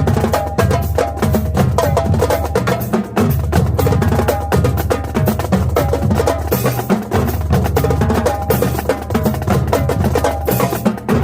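Marching drumline playing: snare drums, pitched tenor drums and bass drums struck in rapid, dense rhythms.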